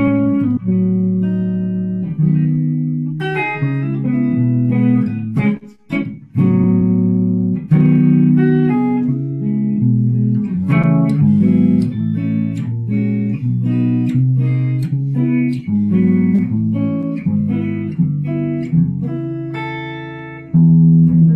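Semi-hollow-body electric guitar played as a run of chords and single-note phrases, with a brief break about six seconds in.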